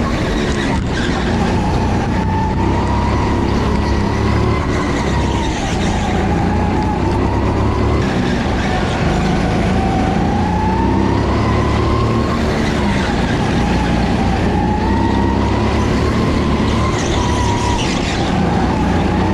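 Engine and drivetrain of a vehicle being driven hard on a track lap, heard onboard: a steady loud run with a whine that rises and falls as speed changes through the corners.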